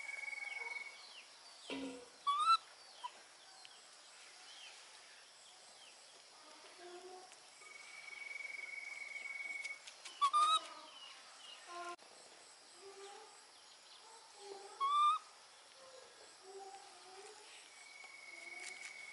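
Birds calling outdoors: scattered short low calls, a few loud short rising calls, and a long steady high whistle that comes three times, about nine seconds apart.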